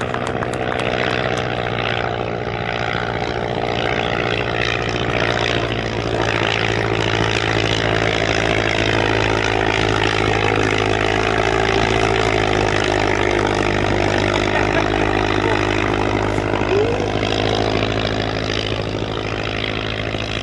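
Propeller aircraft piston engine running steadily, loud and close, its pitch wavering slightly.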